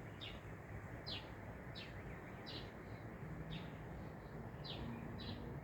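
A bird chirping repeatedly: short, high, falling chirps about once every second, over faint background hiss.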